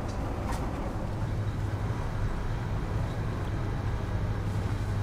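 Steady low rumble of a running engine or motor, with a short click about half a second in.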